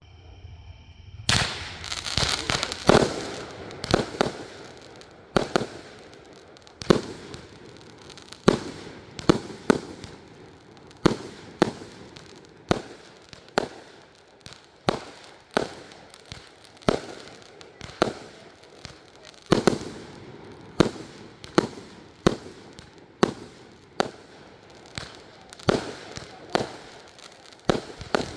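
A 36-shot consumer firework cake (the "Spider Man" cake) firing its shots one after another. Sharp bangs come about once or twice a second, starting about a second in, with crackling from the bursting stars between them.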